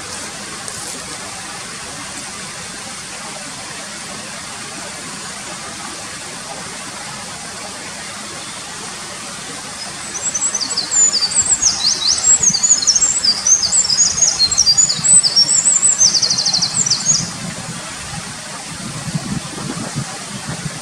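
A Eurasian wren sings one long, rapid song of high, quick-changing notes and trills, starting about halfway in and lasting about seven seconds. A mountain stream rushes steadily underneath.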